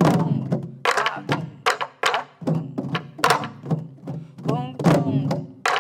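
A group playing sori-buk, the Korean barrel drum that accompanies pansori, in unison in the jungjungmori rhythm. Deep hand strokes on the drumhead mix with sharp cracks of the stick on the wooden shell, with the strong beats accented.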